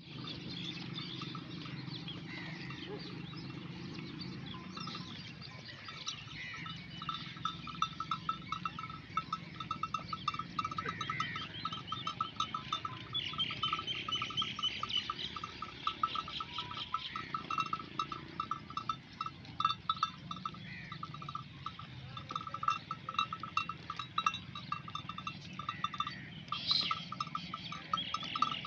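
Bells on a grazing flock of dumba sheep clinking in an irregular, continuous jangle, with a few sheep bleats here and there. A low steady rumble sits under the first few seconds before the bells fill in.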